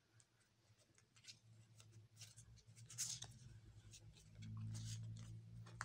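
Faint ticks and flicks of Magic: The Gathering trading cards being handled and sorted by hand, one sharper snap of card stock about three seconds in, over a low steady hum that grows louder a little past the midpoint.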